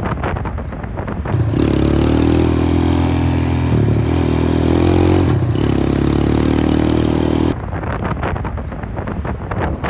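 Storm wind buffeting the microphone. For about six seconds in the middle a loud, steady, engine-like drone takes over, then cuts off suddenly.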